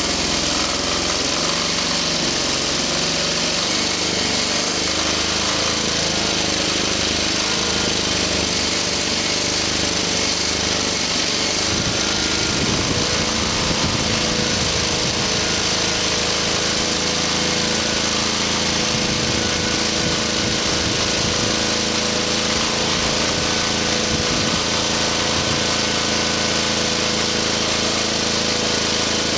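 Diesel generator engine running steadily; a steady tone joins its sound about twelve seconds in.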